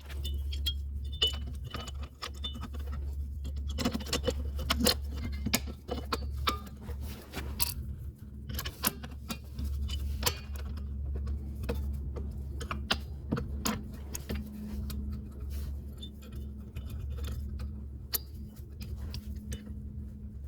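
Irregular metallic clicks and clinks of tools and small metal parts being handled, over a steady low hum.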